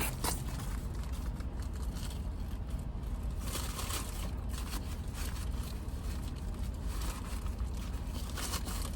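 Rustling, crinkling and crunching from handling and eating a flaky croissant, over a steady low hum inside a car.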